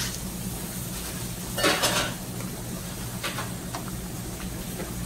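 A metal spoon scraping and clinking against a skillet while stirring potatoes down into a stewed chicken sauce. The longest, loudest scrape comes about a second and a half in, with a few lighter clinks later, over a steady low hum.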